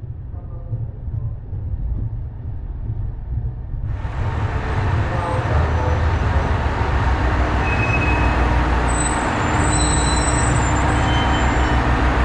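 KiHa 187 diesel railcar pulling in alongside the platform: a low diesel rumble with wheel noise, growing suddenly louder as the train comes alongside about four seconds in, with a few short high squeals near the end.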